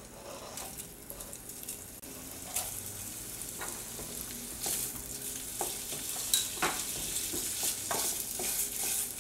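Diced sausage and bacon frying in a hot, lightly oiled pot, the sizzle growing louder a couple of seconds in as more meat goes in and is stirred. A few light knocks of the utensil against the pot.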